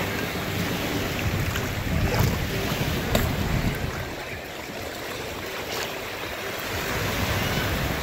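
Small waves washing and breaking in shallow sea water, with wind rumbling on the microphone. A few brief splashes, about two, three and six seconds in, come from two people wrestling in the water.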